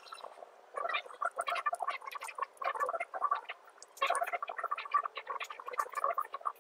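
A cat eating, a fast run of crunchy chewing clicks in two spells with a short pause near the middle.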